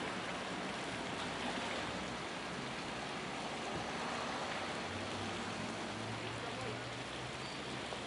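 Steady, even outdoor background noise with a faint low hum in the second half.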